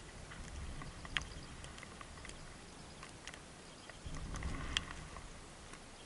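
Dark-eyed juncos and a sparrow pecking at birdseed on snow close to the microphone: scattered sharp ticks and taps of beaks on seed, with low rustling twice, about half a second in and again around four seconds in.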